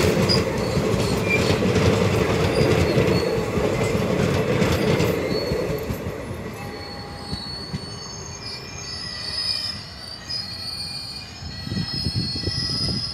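Passenger train coaches rolling past on the track: a steady rumble and rattle of wheels on rail that fades after about five seconds as the train draws away. Fainter high wheel squeals are left behind it.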